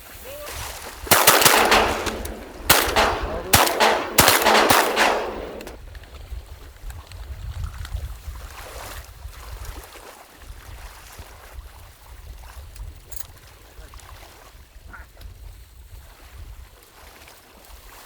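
About four shotgun shots in quick succession, between one and five seconds in, each ringing out briefly. A low rumble of wind and water follows.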